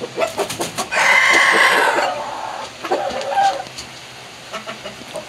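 Rooster calling: a few sharp taps, then a loud hoarse call about a second in that lasts about a second, and a shorter call about three seconds in.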